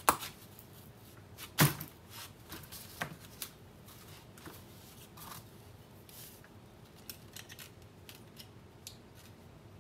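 Sharp metal clicks and light knocks from handling a starter motor and working its brush springs and brushes by hand. Two loud clicks come at the start and about a second and a half in, a couple of smaller ones follow, and then there are faint scattered ticks.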